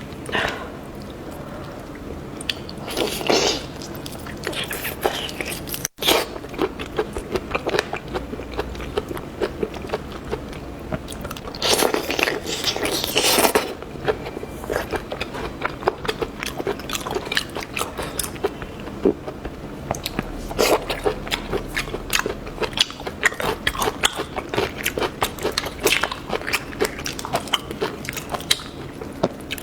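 A person biting and chewing seafood close to the microphone, with many sharp crunchy clicks and a few louder, longer bouts of chewing. The sound drops out for an instant about six seconds in.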